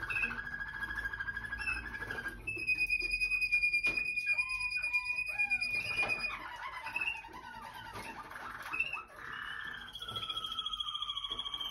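Waterslager canaries singing: a fast rolling trill, then long held whistled notes over a rapid clicking rattle, then short bubbling, bending glides. Near the end a high and a low held note sound together.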